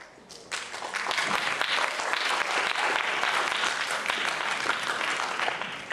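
Audience applauding: a dense patter of many hands clapping that starts about half a second in and begins to die down at the end.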